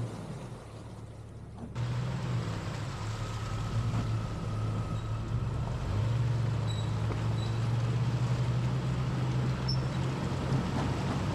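A 1999 Jeep Cherokee XJ's engine running steadily on an off-road trail, its pitch shifting slightly. The sound gets abruptly louder about two seconds in.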